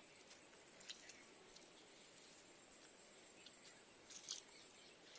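Near silence: faint background hiss with a thin steady high tone and a few faint ticks, one a little louder about four seconds in.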